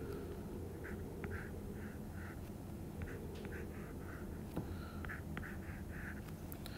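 Stylus drawing on a tablet: a series of short scratchy pen strokes, about two a second, with a few light taps, over a steady low hum.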